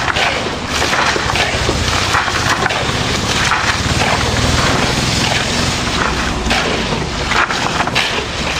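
Wet gravel concrete being tipped from a wheelbarrow and worked with shovels and rakes: continuous gritty scraping and crunching. A steady low machine hum runs underneath.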